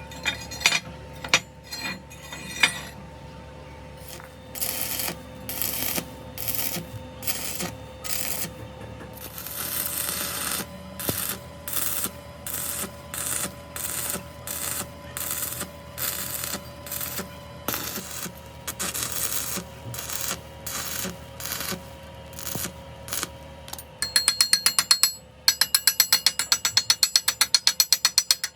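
Metalworking on a differential ring gear: a machine hums steadily while rhythmic scraping strokes repeat about twice a second. Near the end, this gives way to a loud, fast mechanical clicking, like a ratchet.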